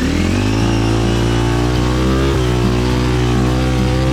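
Trail motorcycle engine revved up hard and held at high revs, with a brief dip about halfway, as the rider tries to power up a slippery climb.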